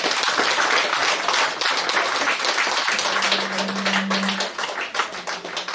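A congregation applauding: dense clapping that starts suddenly and thins out toward the end. A short, steady low tone sounds for about a second and a half in the middle.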